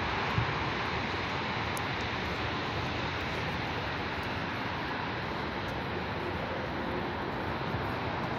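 Steady rushing noise of nearby road traffic, with one brief knock about half a second in.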